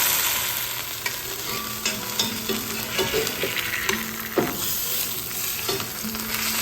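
Chicken quarters searing in hot olive oil in a pan: a steady sizzle, with several sharp clicks and knocks of a utensil against the pan as the pieces are handled.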